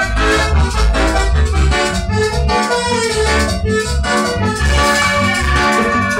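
Latin dance band playing an instrumental passage over a steady pulsing bass beat.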